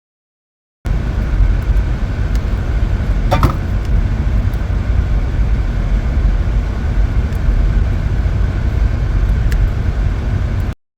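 Steady low rumble of a car in motion, road and engine noise, starting about a second in and cutting off abruptly near the end, with a brief squeak a few seconds in.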